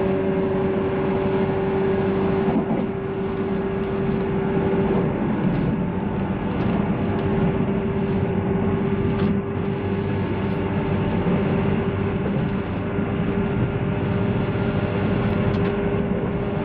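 JR 185-series electric train running at a steady speed: rumble of wheels on rail with a steady traction-motor hum.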